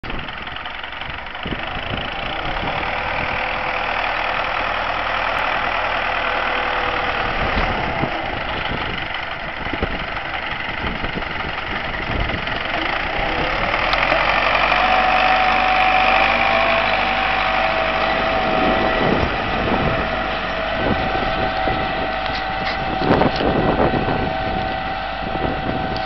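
Belarus 820 tractor's four-cylinder diesel engine running steadily under load while it pulls a plough through stubble. The engine gets somewhat louder in the middle as the tractor passes.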